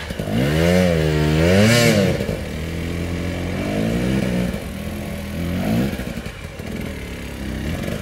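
Off-road enduro motorcycle engine revving: the pitch rises and falls in two strong swells in the first two seconds, then runs lower and steadier and fades a little.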